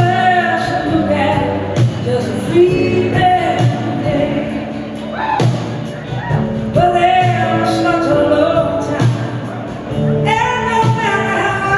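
Live rock band music: a woman sings lead over electric guitar and the band, in phrases a few seconds long.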